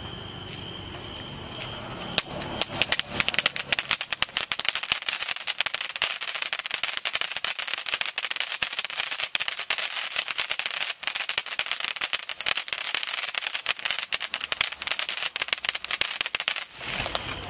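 A mini 'tin beer' ground fountain firework crackling densely and continuously as it sprays sparks. It starts about two seconds in and stops shortly before the end. Crickets chirp steadily before it starts.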